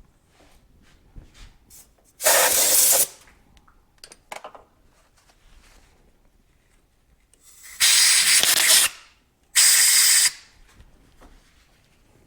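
Compressed-air blow gun fired in three short, loud hissing blasts, the second the longest, with a few faint ticks between them.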